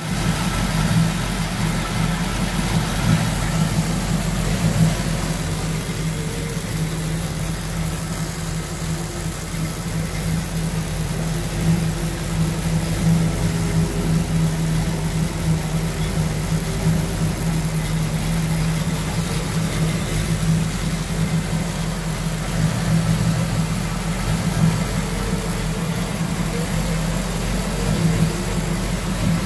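Chevrolet 350 small-block V8 idling steadily.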